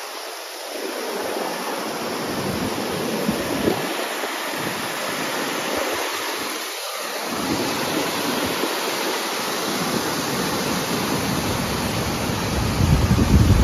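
River water rushing, heard close up as a loud, steady noise. Low rumbles come and go, with the strongest just before the end.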